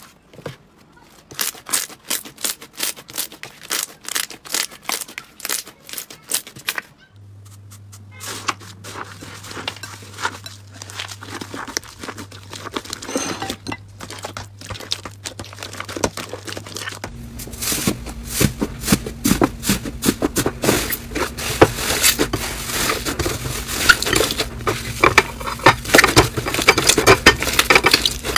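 Hands kneading and squeezing slime, making rapid crackling pops and clicks across several short clips. A low steady hum sits under the later clips.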